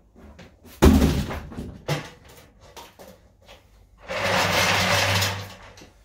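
Unboxing handling noise from a cardboard box and a plastic wet and dry vacuum head. A heavy thump comes about a second in and a lighter knock about a second later. Near the end there is a scraping rustle lasting just over a second.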